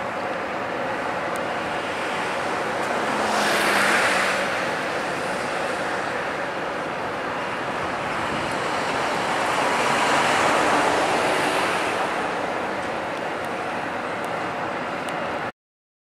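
Distant road traffic, a steady hum that swells twice, about four seconds in and again around ten seconds in, then cuts off abruptly near the end.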